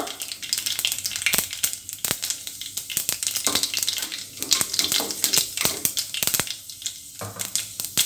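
Mustard seeds and urad dal crackling in hot oil in an aluminium pressure cooker, with many sharp, irregular pops over a steady hiss, while a wooden spoon stirs them: the tempering stage, with the mustard seeds fully spluttered.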